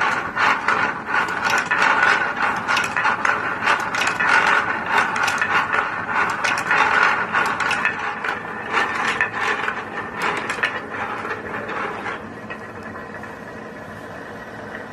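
A machine's mechanism clattering with dense rapid clicking, like a ratchet or gears. About twelve seconds in it drops to a quieter, steady running sound.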